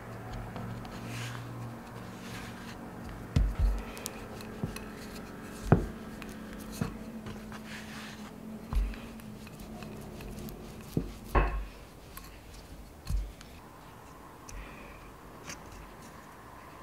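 Hands pressing and gathering puff pastry scraps on a floured wooden board, with scattered dull knocks on the board, the loudest about six and eleven seconds in, over a low steady hum.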